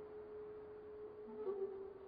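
Quiet background music: a single long held tone that steps slightly lower about one and a half seconds in.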